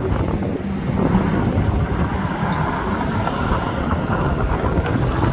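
A motor vehicle passing on the street: a loud, steady noise, heaviest in the low range, that swells about a second in.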